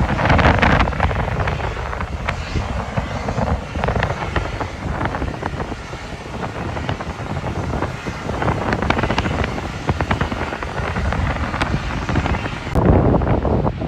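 Wind buffeting the microphone in loud gusts over the steady rumble of a large jet airliner's engines.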